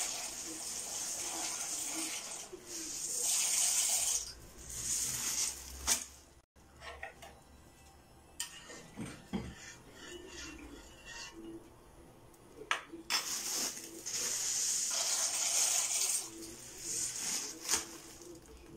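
Dry macaroni horns poured from a plastic bag into a pot of boiling water: a hissing, rustling pour for the first few seconds and again later, with a quieter stretch in the middle broken by a few sharp clicks.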